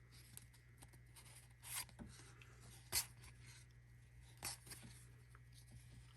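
Faint rustling and sliding of trading cards being handled, with three soft taps or clicks spread through it.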